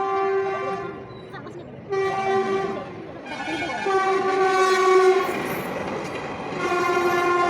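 Train horn sounding in repeated blasts of one steady chord: a blast fading out about a second in, a short one near two seconds, a longer one around four to five seconds, and another starting near the end. Behind the later blasts the running noise of the train grows.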